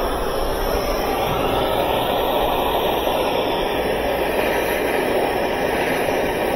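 Steady rushing noise of a heating tool, a heat gun or torch, running to melt a stick of 3M ScotchKote hot melt patch compound onto a plastic washer tub.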